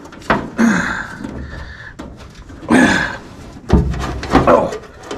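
Knocks and scrapes of a heater box assembly being shoved and worked into position, mixed with a person's grunts and hard breathing from the effort.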